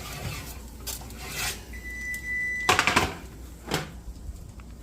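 Dishes and pans clattering with several sharp knocks, the loudest cluster about three seconds in. Just before it, a steady electronic beep sounds for about a second.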